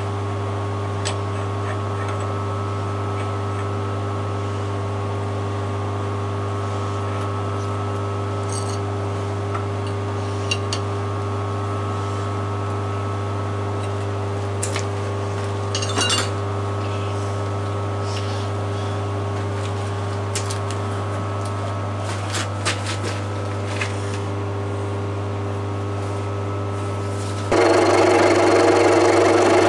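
A steady machine hum with a few short metal clinks while a carbide end mill is fitted into a milling machine spindle and tightened with a spanner. About 27 seconds in, a louder, rougher sound sets in abruptly: the end mill cutting into a round metal workpiece.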